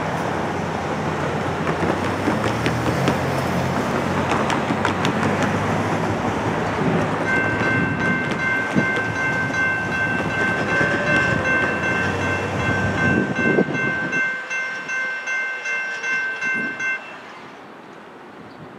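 Cars and a pickup truck passing over the grade crossing, with tyre and engine noise that fades out about fourteen seconds in. About seven seconds in, the crossing's warning bell starts ringing in a fast, steady ring and stops about ten seconds later, the warning for an approaching train.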